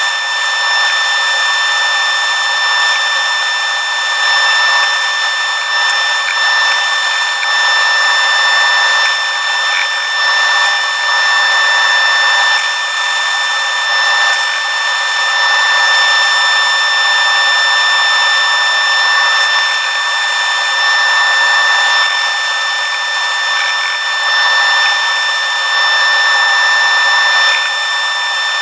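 Lathe spinning a large plywood-backed sanding disc with a steady high whine, while a white oak block is pressed against the abrasive to flatten its face; the sanding hiss comes and goes as the block is worked.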